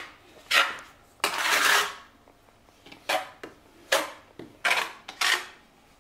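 A steel trowel scraping and spreading tile adhesive, in about half a dozen short strokes with one longer drawn-out stroke about a second in.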